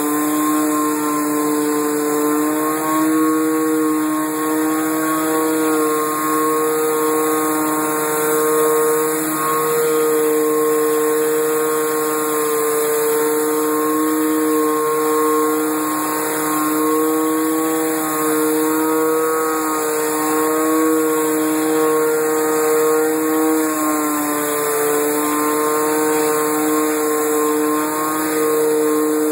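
Old Craftsman pressure washer's engine running steadily, with the hiss of water spray from a Briggs & Stratton rotating surface cleaner working across wet concrete.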